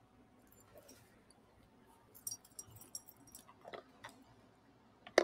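Sipping a drink through a straw from a tumbler close to the microphone: faint slurping with crackly clicks, then one sharp click near the end.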